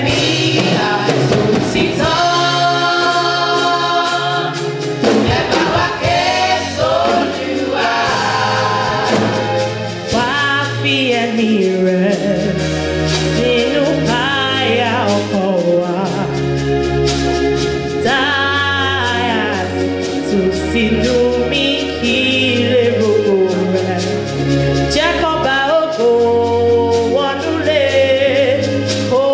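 Youth gospel choir of young women singing through microphones, with long low bass notes from an accompanying instrument changing every couple of seconds underneath.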